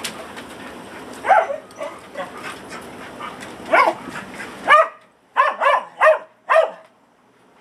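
Dog barking: a single bark about a second in, then a quick run of about six loud barks in the second half.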